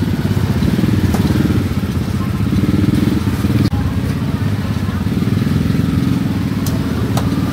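A small engine running steadily and loudly, with a rapid even pulse in its low rumble and a few light clicks over it.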